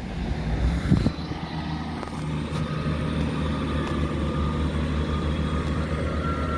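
Underfloor diesel engine of a Class 158 diesel multiple unit running steadily: a low, even drone.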